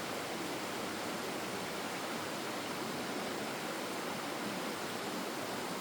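Flowing stream water, a steady rushing with no change.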